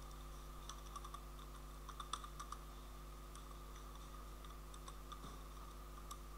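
Computer keyboard keys clicking in a few short runs of typing, faint over a steady background hum.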